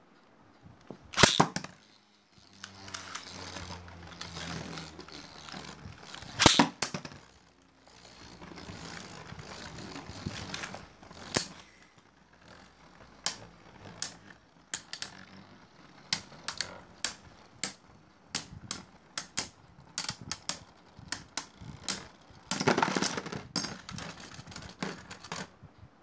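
Two Beyblade Burst spinning tops, Winning Valkyrie and Rising Ragnaruk, in a plastic stadium: a loud launch crack about a second in, whirring as they spin, then a long run of sharp plastic clacks as they collide again and again. A dense rattling clash near the end, and Rising Ragnaruk bursts apart into its layer, disc and driver.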